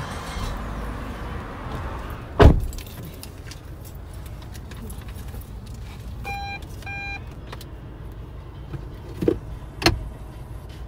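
Heard from inside a car: a car door shuts with a heavy thump about two seconds in, then two short beeps, then two lighter clicks near the end, over a low steady hum.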